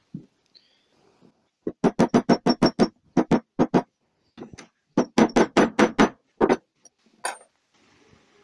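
Hammer tapping on the metal body of a tractor hydraulic distributor valve: two runs of quick, sharp taps with a slight ring, about five a second, the second run starting around five seconds in.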